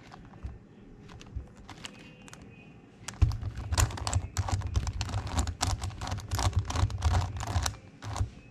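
Megaminx plastic dodecahedron puzzle being turned by hand, its faces clicking as they rotate: a few scattered clicks, then about three seconds in a fast run of many clicks with handling knocks, easing off near the end.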